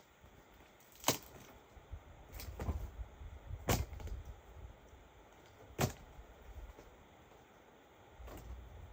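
Three sharp knocks or cracks, about a second, four seconds and six seconds in, with a few fainter clicks and patches of low rumbling between them.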